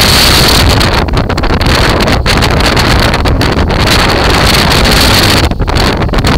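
Strong wind buffeting the microphone: a loud, continuous rushing noise with a brief dip in level about five and a half seconds in.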